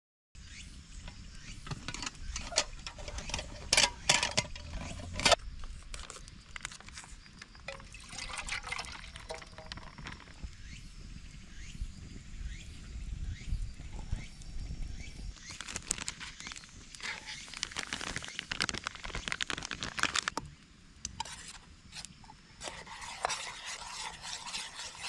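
Utensils knocking and clinking against a metal mess tin, with liquid being poured and a spoon scraping around the tin as it stirs batter. The sharpest knocks come a few seconds in.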